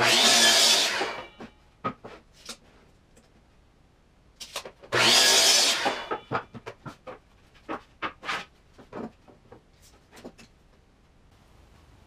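Ridgid miter saw cutting through wood twice, each cut about a second long, the first right at the start and the second about five seconds in, the blade whining briefly as it winds down after each. Between and after the cuts, the clacks and knocks of wooden pieces being handled and set down.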